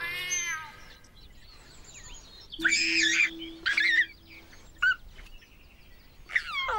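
A baby giggling and cooing in short bursts, with birds chirping.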